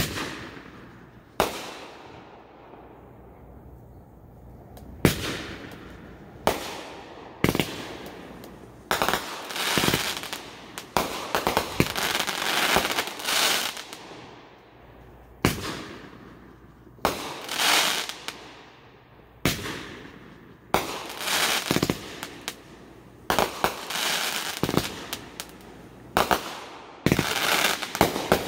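Aerial firework shells bursting: a string of sharp bangs every second or two, many trailed by a second or two of crackling, coming thicker and overlapping toward the end.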